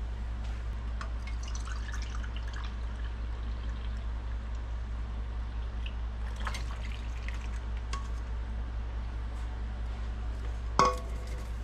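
Pineapple juice poured from a can into a measuring cup and from the cup into a saucepan, with light trickling and a few small clicks. A steady low hum runs underneath, and a short knock comes near the end.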